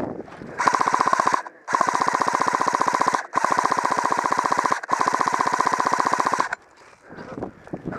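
Airsoft gun firing on full auto in four long, rapid bursts, the first one short and the next three about a second and a half each, stopping about six and a half seconds in.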